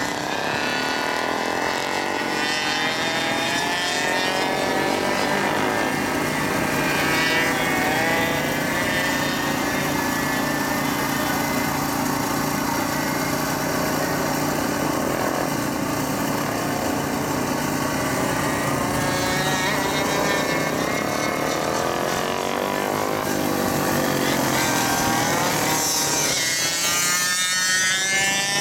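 Several small two-stroke engines of Go-Ped gas scooters racing, their buzz rising and falling in pitch as they rev through the corners. Near the end one scooter passes close, louder, its pitch rising as it accelerates.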